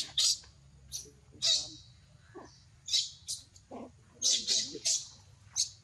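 Baby macaque giving short, shrill squeals and screeches again and again, about nine in all, with a few softer lower calls between them: the distress crying of an upset infant.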